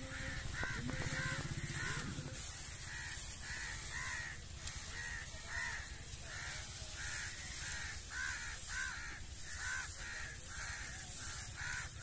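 Crows cawing over and over, about two calls a second. A low hum underneath stops about two seconds in.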